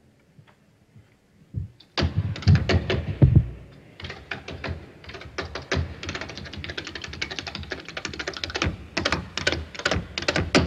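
Tap dancer's shoes tapping rapidly on a stage board, starting about two seconds in and running on in a dense stream of quick taps.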